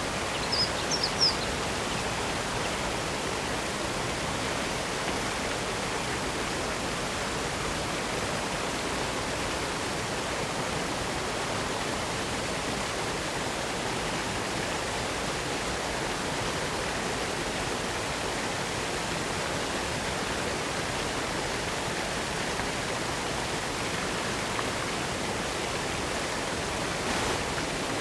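Waterfall and spring water falling and running steadily, an even rushing hiss. A few short high chirps about a second in.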